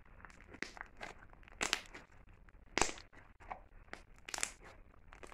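Slime being squeezed and folded between the hands, giving a run of irregular squishes, with two louder ones near the middle.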